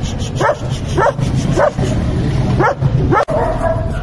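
A German Shepherd barking five times in under three seconds, each bark short and falling sharply in pitch.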